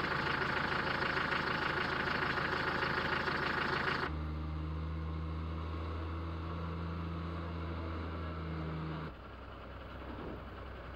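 Motor vehicle engines running, in three abruptly cut segments: a loud engine sound for the first four seconds or so, then a lower, steady engine hum, which drops to a quieter background about nine seconds in.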